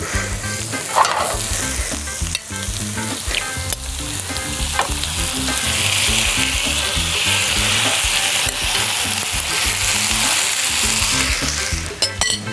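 Yoghurt-marinated chicken thigh cubes being spooned into a hot frying pan of browned courgette, sizzling; the sizzle swells about halfway through as the chicken covers the pan. A few clinks of the spoon on the glass bowl come before the sizzle swells.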